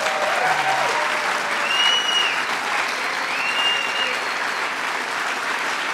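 Audience applauding steadily, with a long whistle from the crowd about two seconds in and another about three and a half seconds in.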